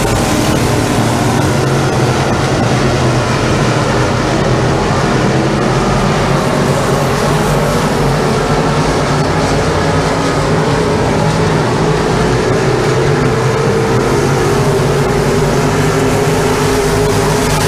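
A field of B-modified dirt track race cars at speed, their V8 engines blending into one loud, steady drone whose pitch rises and falls as the cars lap the oval.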